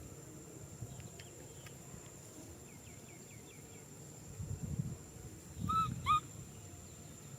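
Baby macaque giving two short, high-pitched squealing cries close together near the end, with faint little chirps earlier on.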